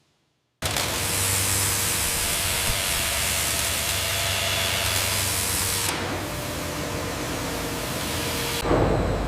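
Steady hissing spray from wood-processing machinery, cutting in suddenly about half a second in, changing at about six seconds, with a deeper rumble joining near the end.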